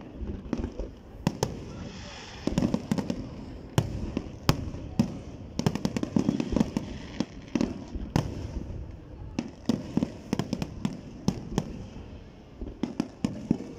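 Aerial fireworks display: shells bursting in a rapid, irregular string of sharp bangs and crackles, dozens of them, over a steady low rumble.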